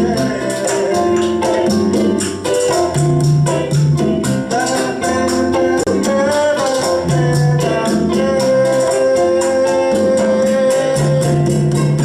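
Live Latin ensemble playing a salsa groove: dense, steady shaker and hand-percussion strokes over a repeating bass figure, with long held melody notes above.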